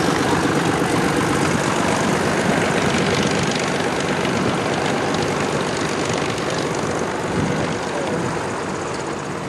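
Pitts aerobatic biplane's piston engine and propeller running steadily as it taxis on the ramp, easing off slightly near the end.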